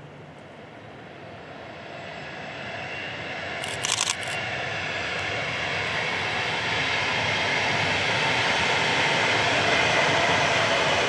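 An approaching train, its running noise growing steadily louder as it nears. A short cluster of sharp clicks sounds about four seconds in.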